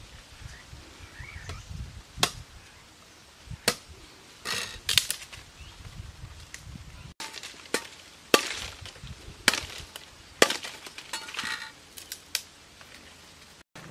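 Dry wooden branches chopped with a large knife and snapped by hand: sharp wooden chops about one every one to two seconds, with brittle twigs cracking and dry leaves crackling between the blows.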